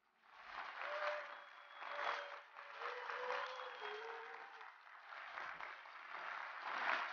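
Studio audience applauding, fairly faint, coming in after a moment of silence and rising and falling in waves.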